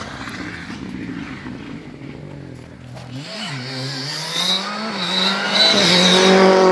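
A Ford Fiesta rally car approaches at full throttle. Its engine note climbs through the gears with brief drops at the shifts and grows steadily louder; the first few seconds hold a fainter, more distant car sound.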